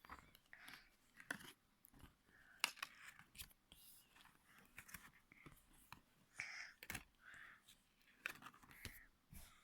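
Faint scattered clicks and soft rustles of a stiff-paged board book being handled and its pages turned.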